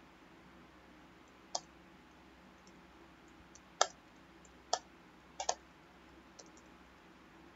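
Computer mouse and keyboard clicks: a handful of short, sharp clicks spaced a second or so apart, two of them in quick succession past the middle, over a faint steady hum.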